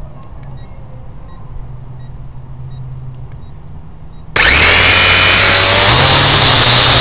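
Holy Stone U818A quadcopter's motors and propellers spin up suddenly about four seconds in, a loud high-pitched whine with a low hum under it, heard up close through the drone's own camera microphone. Before that there is only a faint, steady low hum.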